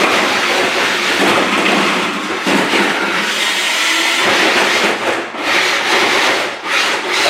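Toy remote-control car driving on a hard floor: a continuous rattly rush of its electric motor, gears and wheels, briefly easing a couple of times.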